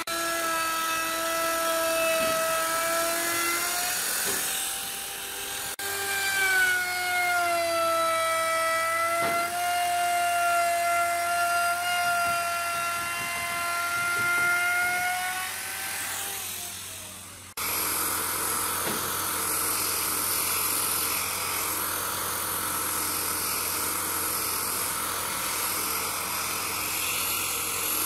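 Electric plunge router whining at high speed as it routs the edge of a wooden tabletop, its pitch sagging slightly and recovering as the bit takes the cut. About two-thirds of the way in, it gives way abruptly to a belt sander running on the wood, a steady hiss with less whine.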